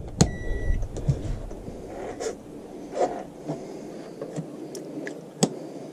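A click at the wall socket switch, then a single beep of about half a second from the VonShef twin induction hob as it gets power. Light handling clicks and rustling follow.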